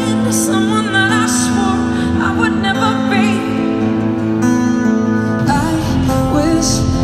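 Live ballad: a female lead vocal sung with vibrato over electric guitar, upright bass and cello, with deeper bass filling in from about five and a half seconds in.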